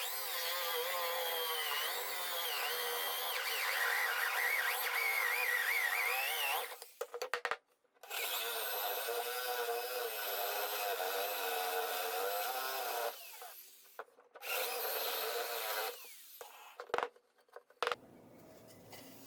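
A power tool's motor running under load in three spells, its pitch wavering as the load changes, with short stops between them. A few sharp clicks follow near the end.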